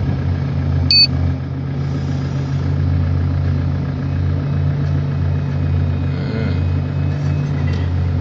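Diesel engines of heavy earthmoving machines, a Liebherr 984 shovel excavator and a Cat D11 bulldozer, running steadily with a deep drone. A short high squeal comes about a second in.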